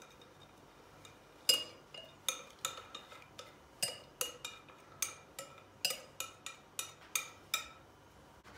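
Wire whisk clinking against the rim and sides of a glass mixing bowl as the last of the batter is worked out, a run of sharp clinks at about two or three a second. It starts about a second and a half in and stops shortly before the end.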